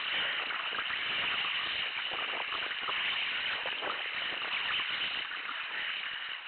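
Kayak paddle strokes: water splashing and dripping off the paddle blades, over a steady hiss of moving water.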